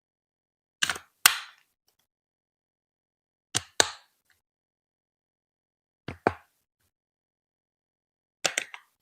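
Hard plastic Lego Duplo bricks clicking as they are set down and pressed together. The clicks come in four quick groups of two or three, about two and a half seconds apart, with silence between.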